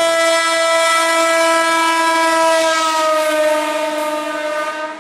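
Horn of an Indian Railways electric inspection car sounding one long, loud blast as the car passes close by, its pitch dropping slightly a little past the middle as it goes past.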